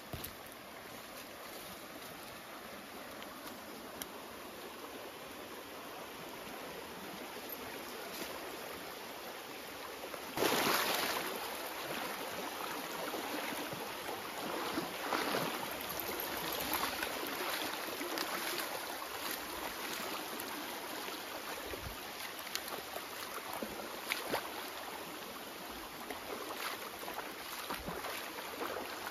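Shallow rocky stream running, growing gradually louder for the first ten seconds. About ten seconds in, splashing starts suddenly as a corgi wades and runs through the shallow water, with uneven splashes to the end.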